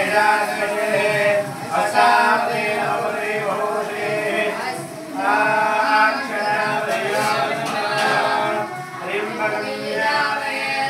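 Men singing a Hindu devotional chant.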